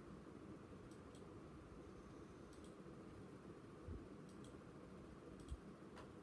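Near silence: room tone with faint, sharp clicks in pairs every second or two, and soft low thumps about four and five and a half seconds in.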